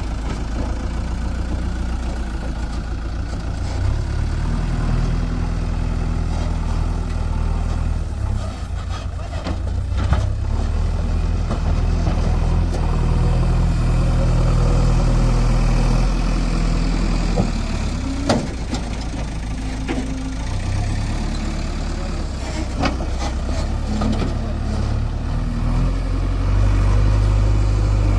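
JCB 3DX backhoe loader's diesel engine running, its pitch stepping up and down several times as the machine works, with a few sharp knocks along the way.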